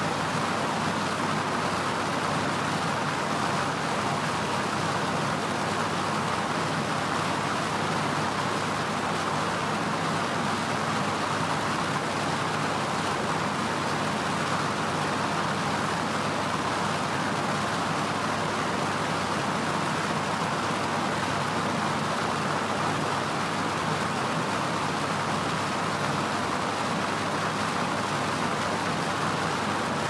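Electric fan running steadily: an even, unchanging rushing noise, strongest in the middle of the range.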